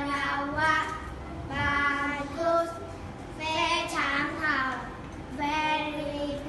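Two young girls singing a song together, unaccompanied, in short phrases of held and gliding notes.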